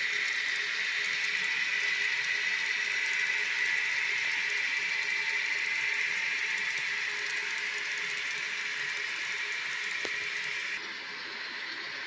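N scale model freight train rolling past close by: a steady high rolling hiss from the cars' wheels on the track, laced with rapid fine clicks. Near the end it turns quieter and duller.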